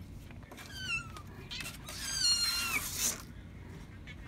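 Kitten meowing twice, high-pitched and falling in pitch, the second call louder and longer, with some rustling of bedding.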